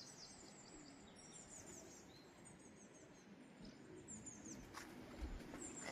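Near silence with faint distant birdsong: scattered short, high chirps. There is a faint knock near the end.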